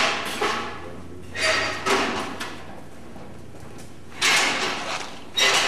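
About five short, noisy scraping sounds at irregular intervals, over a low steady hum.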